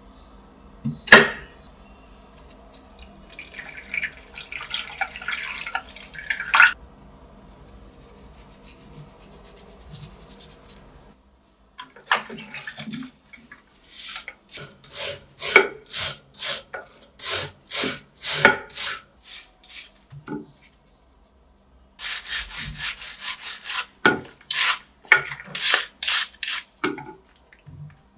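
A stiff-bristled brush scrubbing a model car body and its small parts in a glass dish, in repeated back-and-forth strokes about two a second. A single sharp knock sounds about a second in.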